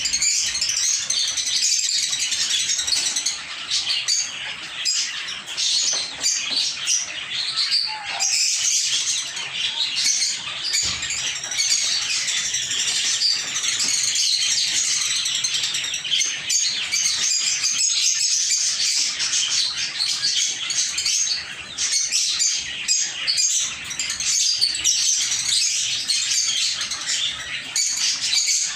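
A group of lovebirds chirping and chattering continuously, many short, high calls overlapping without a break.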